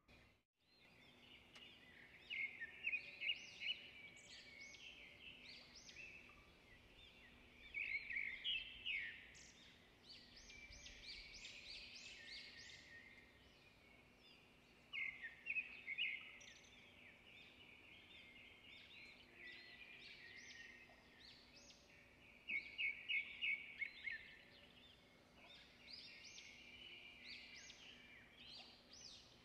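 Faint bird chirping: clusters of rapid, high notes that come every several seconds, with quieter twittering between them.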